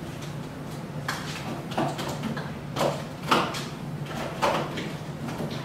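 Rummaging in a kitchen wall cabinet: about five separate knocks and clatters as containers on the shelf are shifted while searching for the ground cinnamon, the loudest a little past three seconds in.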